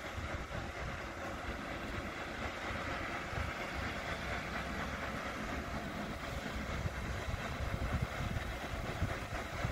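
Steady rushing of a sternwheeler's paddlewheel churning the water some way off, with wind gusting on the microphone.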